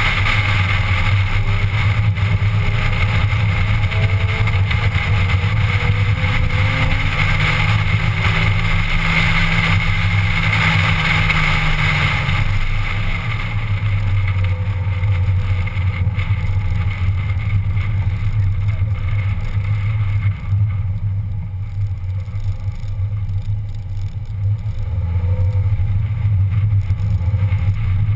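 Car engine and road noise heard from inside the cabin while driving at speed: a steady low drone, with a thin high whine through the first half. It eases off for a few seconds about two-thirds of the way through, then picks up again.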